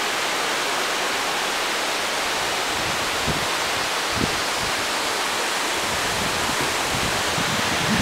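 Steady rushing of a mountain river's water, an even hiss with no change, with a couple of faint low bumps about three and four seconds in.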